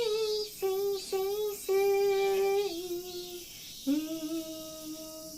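A high, childlike voice singing a slow tune that steps down in pitch, ending on a long held low note: a ventriloquist singing in a puppet's voice.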